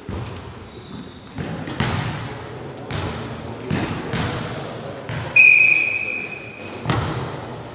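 A volleyball bounced a few times on the sports-hall floor, then a referee's whistle blows one steady note of about a second, the signal for the server to serve, followed by a single thud near the end.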